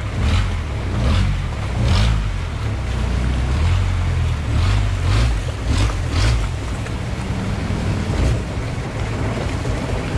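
Long-tail boat engine running with a steady low rumble as the boat moves along a canal, with water rushing past the hull and wind on the microphone.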